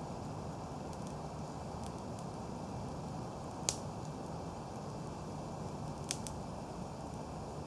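Wood campfire of dry logs burning with a steady low rush, and a few sharp crackling pops: one about halfway through, then two close together near the end.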